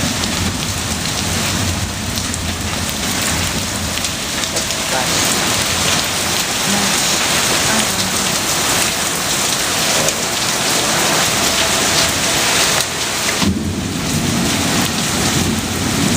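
Heavy rain pouring down steadily in a thunderstorm, with low rumbles of thunder; a deeper rumble comes in near the end.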